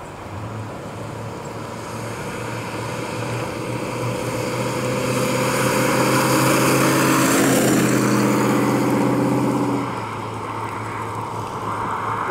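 1965 Dodge Coronet 500 convertible's 318 poly V8 running as the car drives up and past, its engine note and tyre noise growing louder to a peak about eight seconds in. The sound then drops off sharply as the car moves away.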